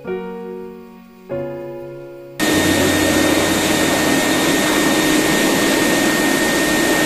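Piano music for the first couple of seconds, then a pet grooming dryer comes on suddenly and runs loud and steady: a rush of air with a steady whine over it.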